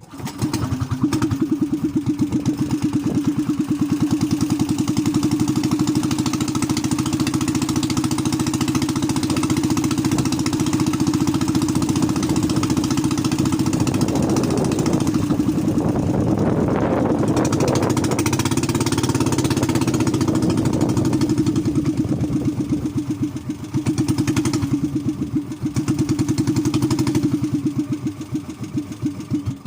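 A small engine running at a steady speed, with a rougher, noisier stretch about halfway through.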